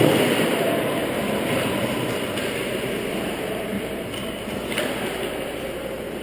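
Ice-rink ambience during a youth hockey game: a steady rushing noise that fades gradually, with a few faint knocks of sticks or pucks on the ice.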